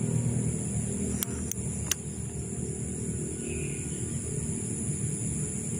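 Night ambience: a steady high insect drone over a steady low engine-like rumble, with three sharp clicks between about one and two seconds in.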